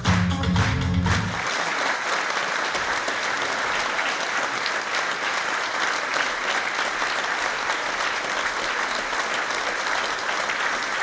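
Music with a steady beat stops about a second in, leaving a theatre audience applauding steadily.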